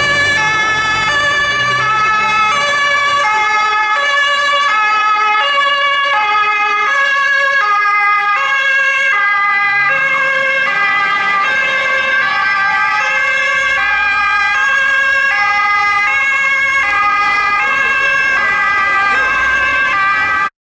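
German police patrol car's two-tone siren (Martinshorn) sounding its alternating high-low "tatütata", loud and regular, with faint vehicle noise beneath; it cuts off abruptly near the end.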